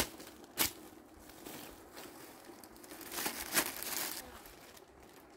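Plastic bags of clothes crinkling and rustling as they are handled. There is a sharp crackle about half a second in and a longer stretch of rustling around three to four seconds in.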